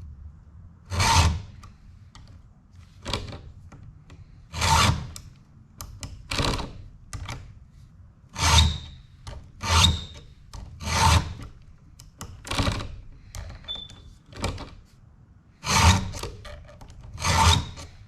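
Hand file drawn across the cutters of a ripping chain for a chainsaw mill, rasping in about a dozen short, even strokes, roughly one every second and a half, with light pressure.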